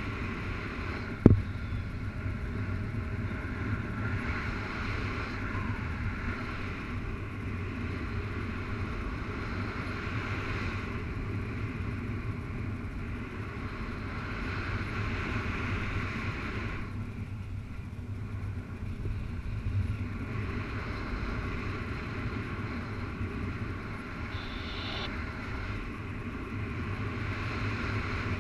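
Wind rushing over the microphone of a camera on a flying paraglider pilot: a steady rush with a low rumble. A single sharp click about a second in.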